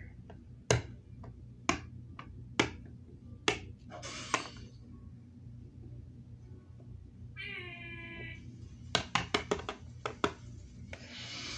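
Hard plastic toy figures tapped and set down on a tabletop: a string of sharp clicks, then a quick cluster of clicks late on. About halfway through, a cat meows once, a call of about a second, and there are two short hissing noises, one near the start and one at the end.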